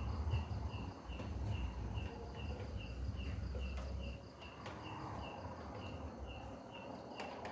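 A cricket chirping steadily, a short high chirp repeated about three times a second, under a faint low hum that drops away about four seconds in.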